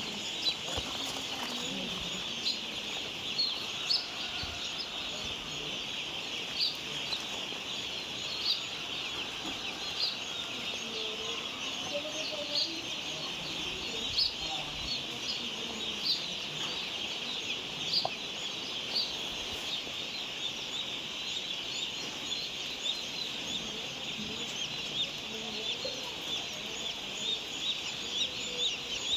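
Many chicks peeping together in a dense, continuous high chirping. Louder single chirps stand out every second or two.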